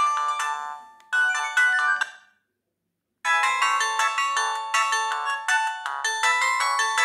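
BenQ-Siemens A38 mobile phone ringtones: one melody fades out about a second in and a short snippet follows. After a brief silence, a new bright melody starts and keeps playing.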